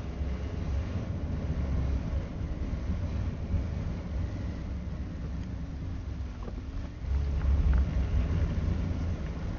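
A motor vehicle under way: a steady low engine and road rumble with wind noise, the engine note dipping and rising about five to six seconds in, and the rumble louder from about seven seconds.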